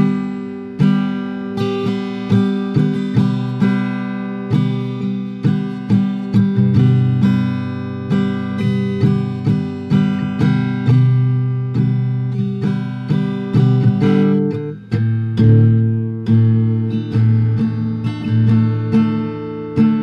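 Background music: an acoustic guitar strummed in a steady rhythm, with the chords changing about two-thirds of the way through.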